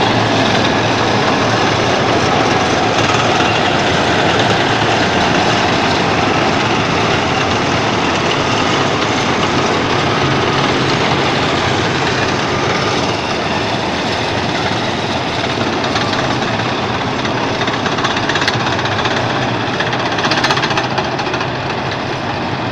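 A column of T-72-type main battle tanks driving past on asphalt: heavy diesel engines running and steel tracks clanking and rattling over the road, loud and steady, with a few louder clanks near the end as another tank comes close.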